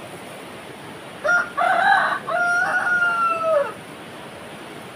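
A rooster crowing once, starting about a second in and lasting about two and a half seconds, ending on a long held note that falls away. A steady rush of river water runs underneath.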